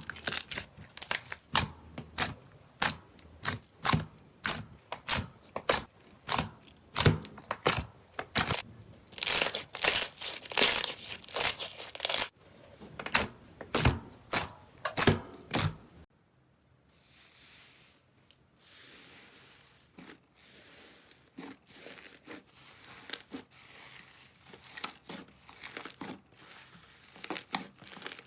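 Slime being squeezed and poked by hand, giving a string of sharp crackling pops about two a second. About sixteen seconds in it gives way to softer, quieter crinkling squishes.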